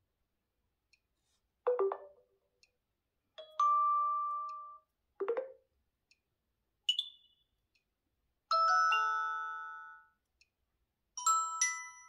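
OnePlus 9 Pro playing a run of short, different chime tones one after another. There are six in all, each a bright ding or a few notes that ring out and fade before the next begins.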